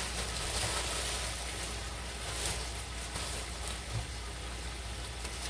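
Hamburger buns toasting in melted butter on a grill, sizzling steadily.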